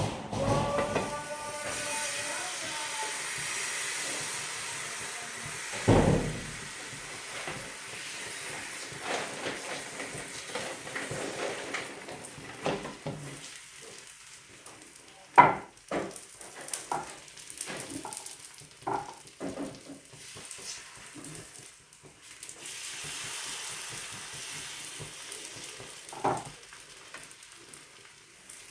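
Thin rice-flour and semolina batter for saru chakli pitha sizzling on a hot pan. The sizzle is loudest for the first few seconds and again later on, with a few sharp knocks of a utensil against the pan.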